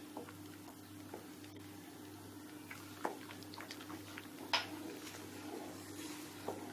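Spatula stirring a thickening egg-and-milk halwa mixture in a non-stick wok: soft scrapes and a few light taps, the loudest about four and a half seconds in.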